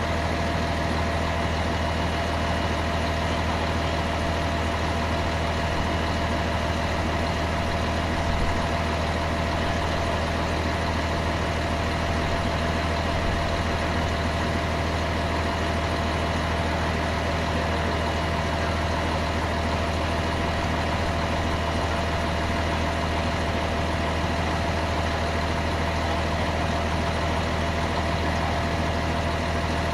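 A heavy engine idling steadily, with an even low drone and no change in pitch.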